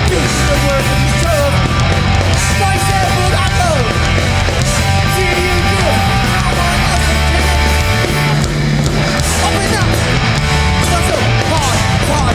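A New York hardcore band playing live through a club PA, with loud distorted electric guitars, bass and drums driving along without a break.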